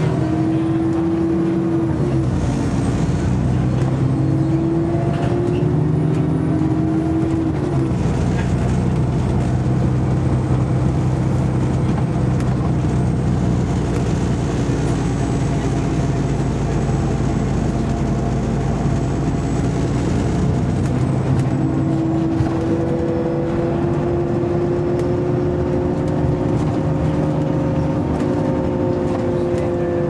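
Alexander Dennis Enviro400 double-decker bus (Trident 2 chassis, Euro 5 engine, Voith automatic gearbox) heard from inside the saloon while under way. A steady engine drone runs under whining tones that fall in pitch about two seconds in and climb slowly again over the last third as the bus picks up speed.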